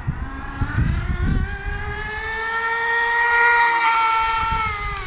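Homemade RC rail drag car's small gas engine running at high revs, a high-pitched whine that climbs for about two seconds, holds, then eases off and cuts away near the end.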